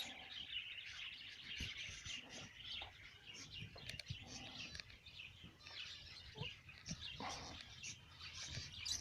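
A flock of small cage birds in an aviary chirping together, a faint continuous chorus of high chirps, with a few soft low knocks mixed in.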